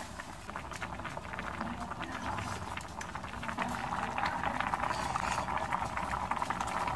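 Pot of doenjang-jjigae (soybean-paste stew) boiling, a steady dense crackle of bubbling.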